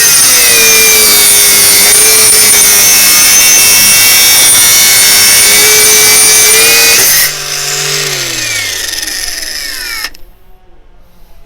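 Parkside Performance PWSAP 20-Li C3 cordless brushless angle grinder cutting into steel, a loud harsh grinding under load for about seven seconds. The disc then comes free and the motor winds down, falling in pitch, until the sound stops abruptly near the end.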